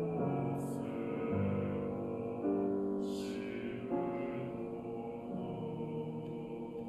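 Male-voice choir singing slow, held chords in Japanese, the chord changing every second or so, with sharp sung 's' consonants about half a second and three seconds in. The singing fades gradually toward the end.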